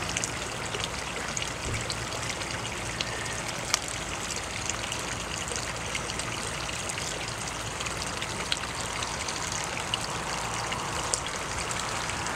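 Water pouring steadily from a watering can's spout into a pool of water in the planting basin around a freshly planted sapling, with a few faint clicks.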